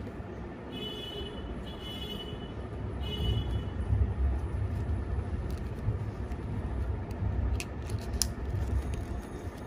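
Low rumble throughout, with a few sharp crackles near the end as the end flap of a small cardboard box is prised open. Three short high tones sound in the first few seconds.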